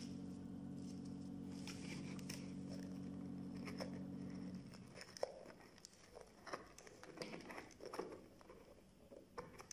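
Light taps, clicks and rustles of hands handling a laser-cut wooden lampshade on a table, mostly in the second half. A steady low hum from an unseen source runs under the first half and stops about four and a half seconds in.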